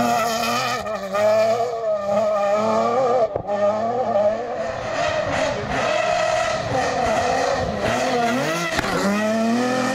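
Off-road rally buggy engine revving hard at full race pace, its pitch climbing and dropping again and again with throttle and gear changes. There is a short break about three and a half seconds in.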